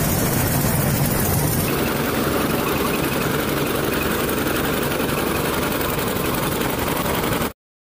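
Combine harvester running as it cuts the crop: steady engine and machinery noise. The sound changes about two seconds in and cuts off abruptly near the end.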